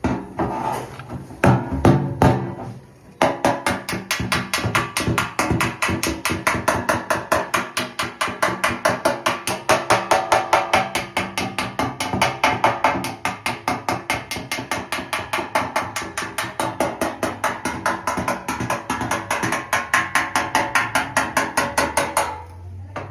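Background music with a fast, even percussive beat of about five strokes a second, preceded by a few irregular knocks in the first three seconds.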